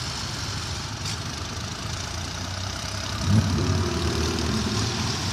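Vehicle engine running steadily at low revs, then revving up about three seconds in with a rising pitch before settling.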